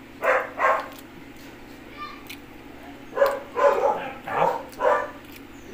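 A dog barking in short, separate barks: two close together near the start, then a run of about five starting about three seconds in.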